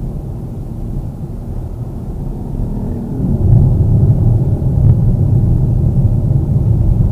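Road and wind noise inside the cabin of a Mitsubishi Xpander cruising on highway asphalt: a steady low rumble that grows louder about three seconds in. Rubber door seals have been fitted to cut the wind noise, which the owner says is now almost gone.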